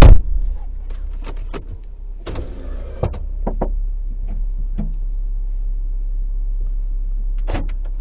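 Vehicle engine running low and steady, heard from inside the cabin, with one loud thump right at the start and scattered clicks and knocks after it as a dog moves about between the front seats.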